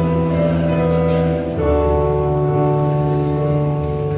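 Live band music: an electric keyboard playing held chords over a low bass, the chord changing about one and a half seconds in.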